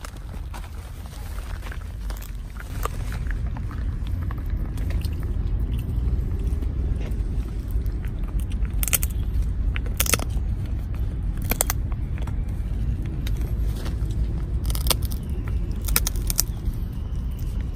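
Bichon frisé chewing a hard cube-shaped treat, with several sharp crunches in the second half, over a steady low rumble.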